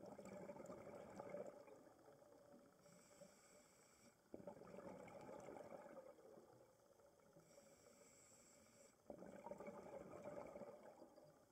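A scuba diver breathing through a regulator underwater: three faint bursts of bubbling exhalation about four to five seconds apart, with a thin hiss of inhaling between them.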